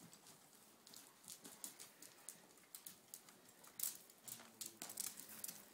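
Faint, irregular soft thuds and clicks of a ridden colt's hooves on soft arena dirt.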